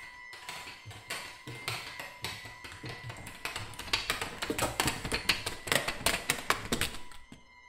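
A rapid, irregular clatter of taps and knocks that grows louder and denser about halfway through, then cuts off suddenly near the end. A thin, steady high ringing tone sits under it at the start and returns once the knocking stops.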